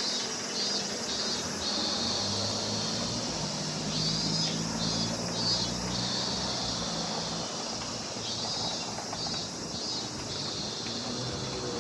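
Summer insects in a steady high chorus, with a short phrase of a few quick pulses repeating about every four seconds. A low traffic hum runs underneath.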